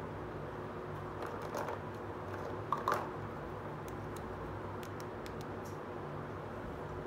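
Light clicks and taps of small plastic toy kitchen utensils being picked up and handled, loudest around three seconds in, over a steady low hum.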